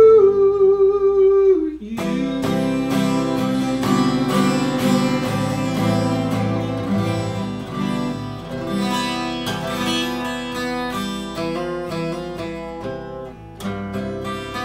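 A man's held sung note ends in the first two seconds. Then a twelve-string acoustic guitar plays alone, picking out a run of separate notes and chords that close the song.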